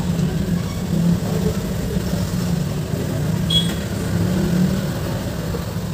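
Steady low drone of a vehicle engine heard from inside, with one small sharp click about three and a half seconds in.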